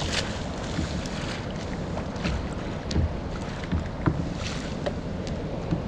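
Wind on the microphone over small waves lapping against a sit-on-top kayak's hull, with scattered light knocks.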